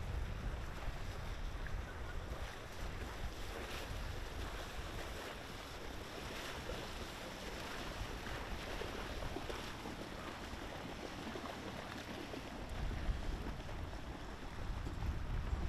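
Boat wake washing and splashing along a canal bank, with wind rumbling on the microphone, strongest at the start and again near the end.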